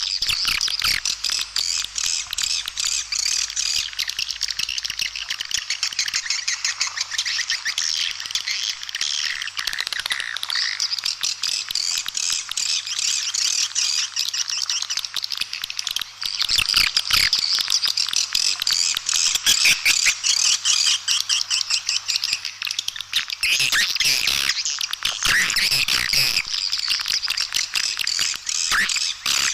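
Swiftlet calling (lure) recording: a dense, unbroken chorus of rapid swiftlet twittering, the kind played from speakers to draw swiftlets to a nesting house. It grows a little louder about halfway through.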